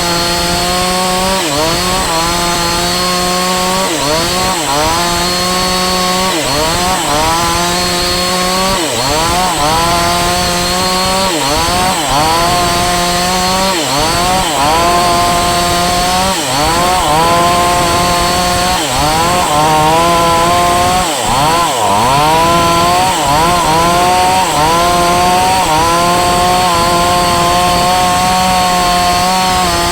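Falcon Evo 9000 two-stroke chainsaw running at high revs and cutting wood. Its pitch dips and recovers every second or two as the engine loads down in the cut.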